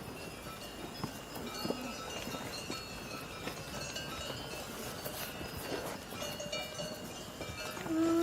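Cowbells clinking over scattered hoof clops and shuffling. Near the end a cow starts a long, loud moo.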